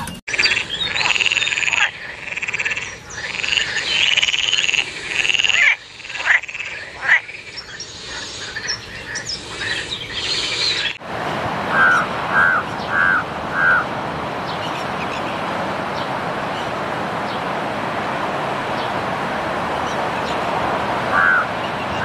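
For the first half, a dense chorus of high, repeated animal calls. Then the sound changes abruptly to a steady hiss, over which a crow caws four times in quick succession, and once more near the end.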